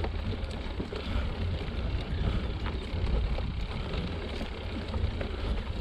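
Mountain bike climbing a dirt singletrack: wind buffeting the microphone with a steady low rumble, over the noise of tyres on dirt and scattered small clicks and rattles from the bike.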